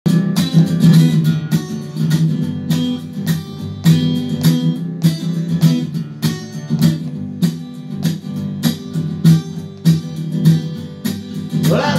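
Acoustic guitar strummed in a steady rhythm, about two strums a second: the instrumental intro to a talking blues, before the singing begins.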